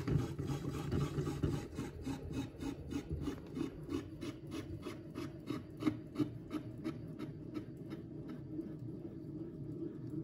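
A hand-gripper test rig's tensioning mechanism is wound to pull a steel cable against a Cobalt gripper's spring. It makes a rhythmic rasping with about four clicks a second over a low grinding, as the load on the gripper rises.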